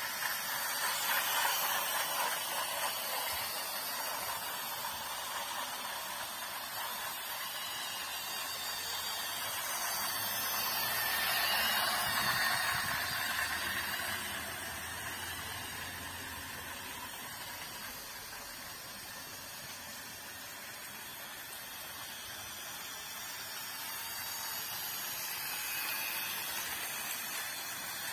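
Battery-powered toy trains running on plastic track: a steady whirring, rattling noise from their small motors, gears and wheels. It gets louder as a train passes close, about a second in and again around twelve seconds in, when a low rumble joins it.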